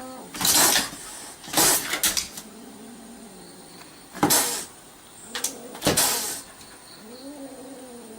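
A cat: several short, sharp noisy bursts, then a drawn-out, wavering meow starting near the end.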